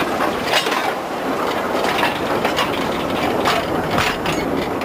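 Narrow-gauge railway wagon rolling past close by, its wheels clattering on the track with many sharp, irregular knocks; the clatter fades just after the end.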